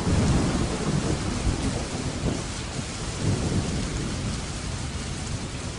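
Thunder rumbling over steady rain. A loud roll breaks at once, with further rolling rumbles through the middle, and it eases off toward the end while the rain hiss carries on.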